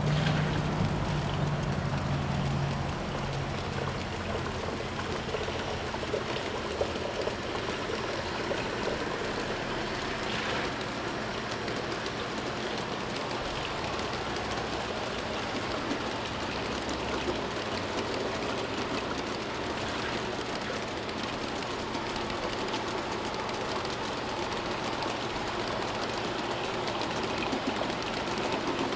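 G-scale model freight train rolling past on garden track: a steady rushing clatter from the wheels of many cars on the rails. A low hum from the locomotives fades out over the first few seconds.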